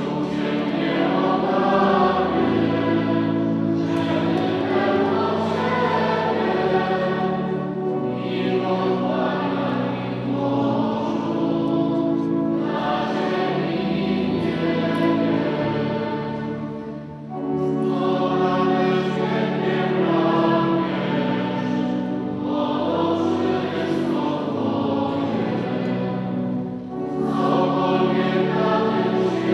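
Choir singing sacred music in long held notes, phrase after phrase, with short breaks between phrases.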